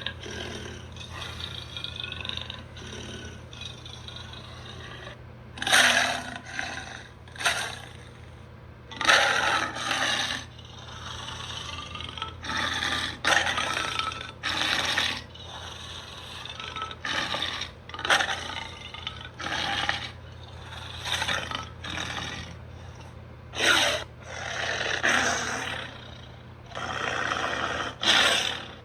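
Cheetor's film sound effects, a robotic cheetah's growls and rasping roars: about a dozen separate bursts of a second or two each, with quieter, wavering growls in the first few seconds.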